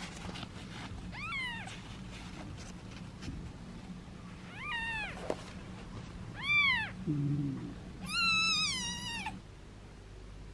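Two-day-old kitten mewing: four thin, high-pitched mews, each sliding down in pitch, the last one the longest and wavering.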